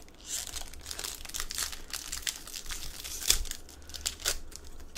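Foil wrapper of a Pokémon trading-card booster pack being torn open and crinkled by hand: a dense run of crackling with a few louder snaps, the sharpest about three seconds in.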